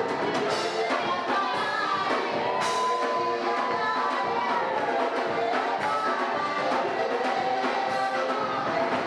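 Lively worship music: singing voices over a drum kit and other instruments, with a steady beat.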